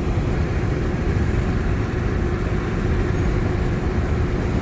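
Steady road and engine noise inside a moving car at highway speed: a constant low rumble with a faint steady hum.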